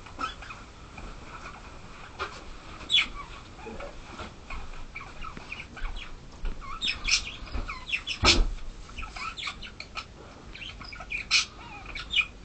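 Scattered short, high chirps and squeaks from a small animal, coming in irregular runs and busier in the second half, with one sharp knock about eight seconds in.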